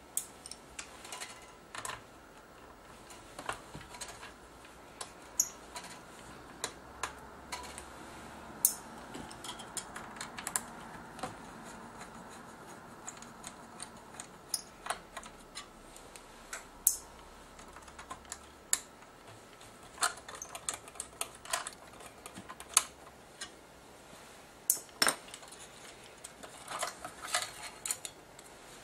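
Irregular light clicks and metallic taps as a thin sheet-metal shield plate and its small screws are handled and worked free from a camcorder's chassis, a little more often near the end as the plate comes away.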